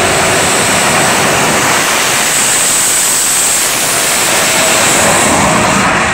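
Shockwave jet truck's three Pratt & Whitney J34 jet engines running at full afterburner as the truck launches and makes its pass down the drag strip: a loud, even rushing noise with no letup.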